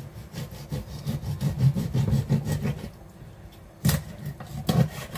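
A large kitchen knife sawing back and forth through a piece of raw grass carp on a wooden cutting board, a fast run of rasping strokes, then two sharp knocks about a second apart near the end.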